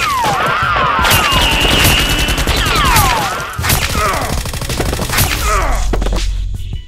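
Rapid automatic gunfire, the added sound effect of a Nerf blaster fight, with several short falling squeals over it and a steady high tone about a second in.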